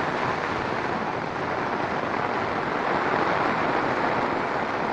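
Steady, even rush of water from heavy tropical rain and a flooded creek running high.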